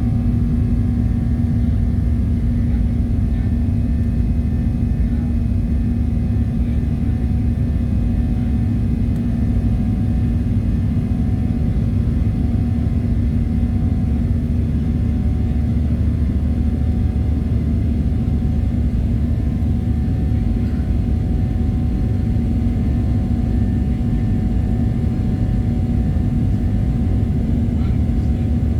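Boeing 737-700 cabin noise from a window seat: a steady low rumble with a constant hum, holding level throughout.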